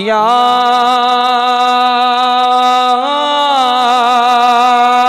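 A man's voice chanting a naat refrain, holding one long drawn-out note that steps up slightly in pitch about three seconds in and is held again.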